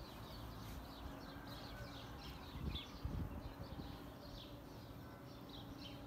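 Small birds chirping: many short, high chirps repeating irregularly, over a faint steady low hum.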